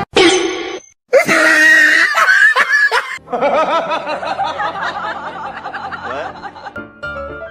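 A person laughing hard in a long run of quick, repeated bursts, starting about a second in. Before it comes a short sound with a high falling whistle.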